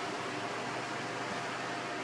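Steady background hiss with a faint, constant hum, unchanging throughout.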